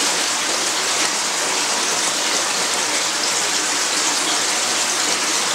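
Steady rush of running water, an even hiss-like noise that holds at one level.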